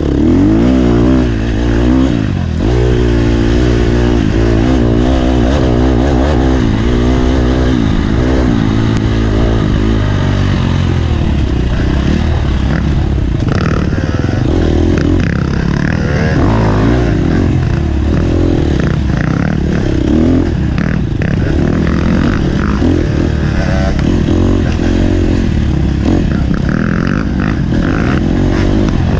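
Off-road dirt bike engine revving up and down again and again as the throttle is worked, with clattering and scraping knocks over rough ground.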